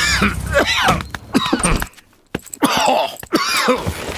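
A cartoon bear's voice coughing and groaning with the cough he has caught. It comes in two bouts of quick vocal coughs with a short pause between.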